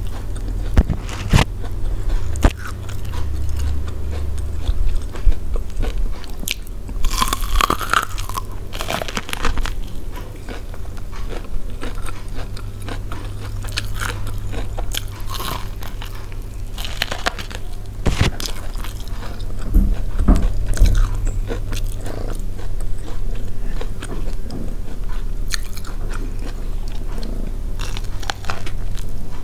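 Close-miked eating of steamed corn on the cob: repeated bites pulling kernels off the cob with small crisp pops, and wet chewing, at an irregular pace over a steady low hum.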